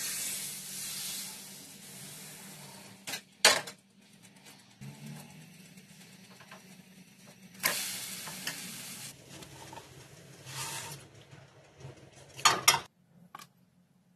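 Crêpe batter sizzling as it is poured into a hot buttered frying pan, the hiss dying away over about three seconds. A second short hiss of frying comes about eight seconds in, with a sharp knock before it and a few knocks and clinks of pan and plate near the end.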